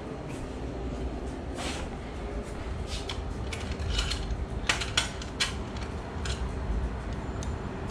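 Scattered metallic clicks and clinks of tools and bolts as a car seat is set in place and bolted down, most of them in the middle few seconds, over a low steady hum.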